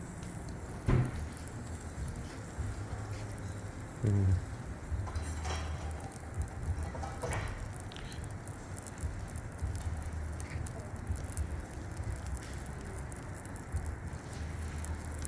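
Fish sizzling and charcoal crackling on a barbecue grill, a steady crackly hiss over a low hum, with two sharp knocks about one and four seconds in.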